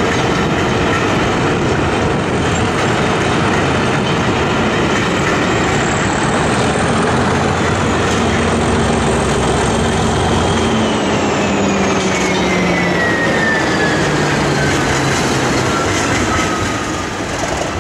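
Train of passenger coaches rolling past at close range, wheels running steadily over the rails, with a Class 37 diesel locomotive on the rear coming past near the end. A faint whistle-like tone slowly falls in pitch over the last few seconds.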